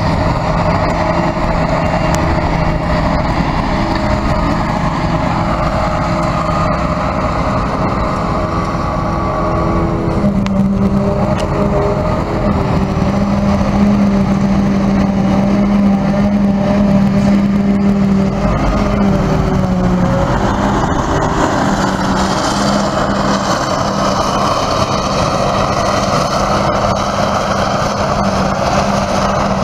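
Silage harvesting machinery running steadily: a Claas Jaguar self-propelled forage harvester chopping grass and blowing it into a trailer pulled alongside by a tractor. The engine note shifts and grows a little stronger about ten seconds in.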